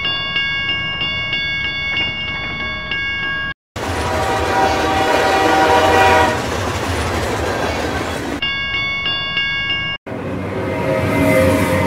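Dubbed railway sound effects: a level-crossing warning signal ringing in even repeats, cut to a recorded train going by with its horn sounding and rail noise, the tones dropping in pitch as it passes, then the crossing signal again. After a cut about ten seconds in, a road-vehicle sound takes over.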